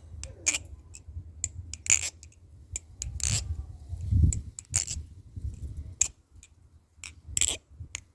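A balisong (butterfly knife) being flipped: irregular sharp metal clicks and clacks as the handles swing around and strike, several of them louder than the rest.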